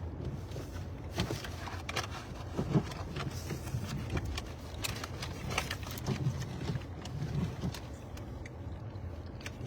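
A vehicle's engine running while stopped: a steady low rumble, with scattered light clicks and knocks.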